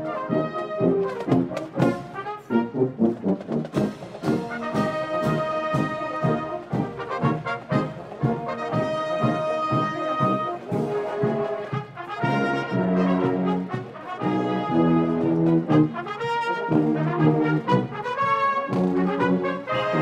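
High school marching band playing, the brass leading with changing melodic lines and held low chords a little past halfway.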